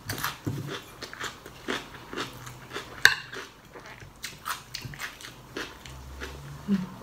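Close-up chewing of crisp raw vegetables and minced-pork larb: a run of wet, crunchy bites at an uneven pace. About three seconds in comes one sharper, louder click.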